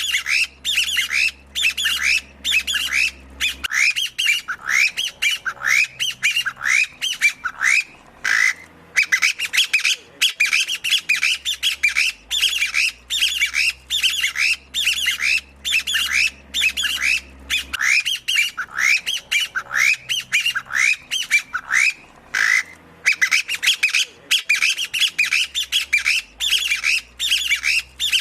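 Chinese bamboo partridge calling: a rapid, repeated series of short, rising, squawky notes, about three a second, broken by short pauses every few seconds.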